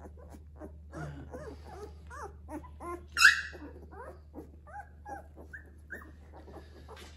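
Two-week-old Labrador puppies whimpering and squeaking, many short cries overlapping, with one sharp high yelp about three seconds in. A steady low hum runs underneath.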